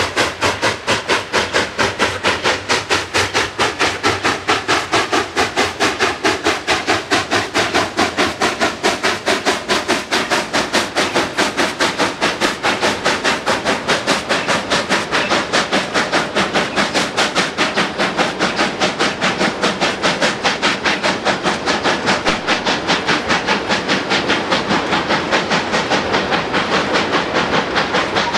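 Narrow-gauge steam locomotive working steam as it pulls a freight train past, its exhaust beating in a fast, even rhythm of chuffs. The sound grows slightly duller near the end as the engine draws away and the cars roll by.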